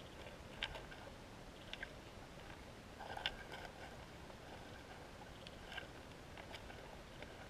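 Faint underwater ambience picked up by a GoPro Hero 3+ in its waterproof housing: a low steady hiss with a few scattered sharp clicks and ticks, the loudest a little over three seconds in.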